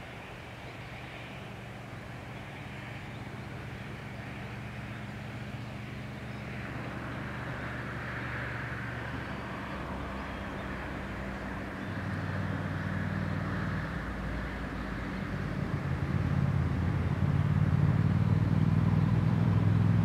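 A low engine hum with a hiss above it, growing steadily louder as it comes closer.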